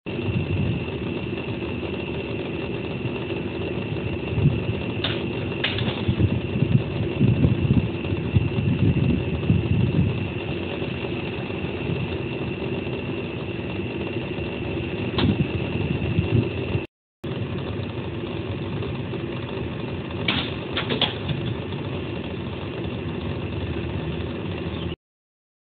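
Steady outdoor background hum with a thin, steady high whine, broken a few times by sharp knocks and clicks, in pairs about 5 s in and again about 20 s in.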